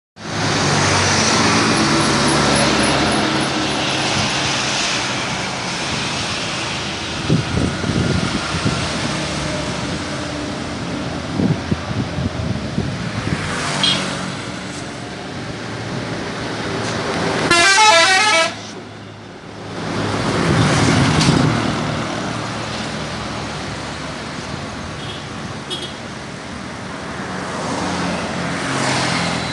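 Traffic passing close by on a highway: diesel trucks and motorcycles go by one after another, their engines rising and fading as each passes. A little past halfway a loud warbling vehicle horn sounds for about a second.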